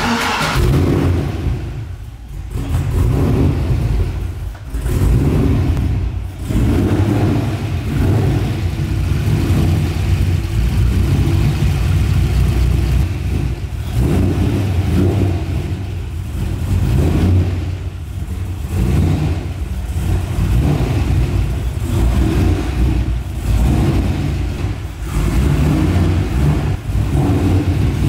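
LS V8 engine in a BMW E36 firing up, then running loud and uneven with repeated swells in revs as the car creeps along.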